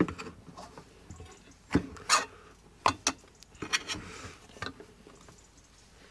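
Irregular sharp knocks and clacks of a utensil against a cooking pot, about five in all, with a short scrape about four seconds in, as pudding stuck to the bottom of the pot is worked loose.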